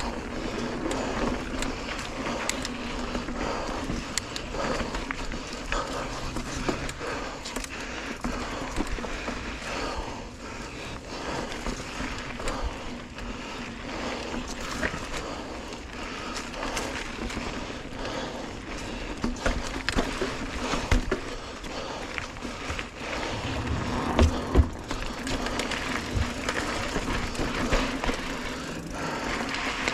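Mountain bike rolling fast along a dirt forest trail: a steady rush of tyre and wind noise, with frequent rattles and knocks from the bike over roots and bumps.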